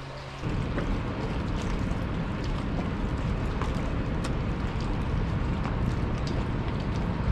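Steady wind rush and rumble on the microphone, starting suddenly about half a second in, with a few faint ticks over it.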